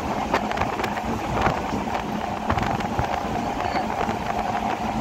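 Train running along the track at speed, heard at an open window: a steady rumble and rush of wind, with scattered sharp clicks from the wheels on the rails.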